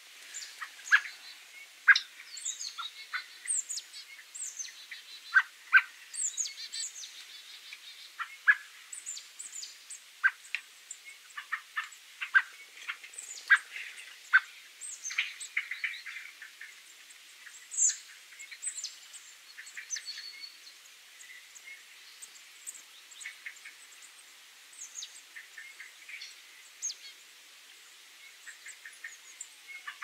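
Common blackbird calling: a long run of short, sharp call notes mixed with thin high notes, several a second at times. The calls grow sparser about two-thirds of the way through.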